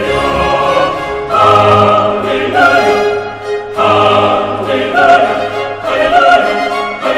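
Operatic classical music: a voice singing long held notes over an orchestra.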